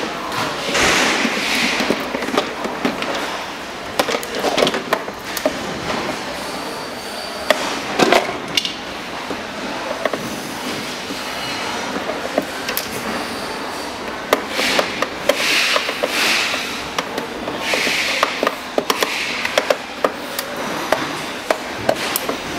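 Screwdriver work on a plastic ride-on toy buggy body: repeated clicks and knocks of the tool and hard plastic parts, with short scraping sounds every few seconds as screws are turned out.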